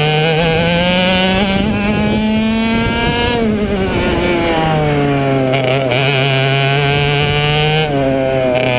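IAME 125cc two-stroke kart engine at full racing revs, its pitch climbing under acceleration, then falling sharply about three seconds in as the driver lifts off for a corner, and climbing again out of it, with a brief lift near the end.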